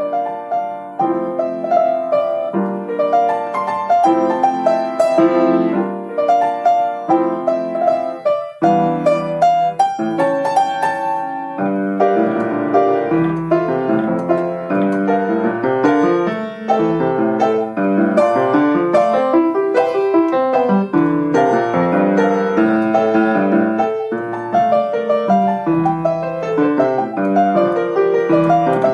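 Grand piano played solo: a steady stream of many quick notes across the middle and upper range, with a momentary break about eight and a half seconds in.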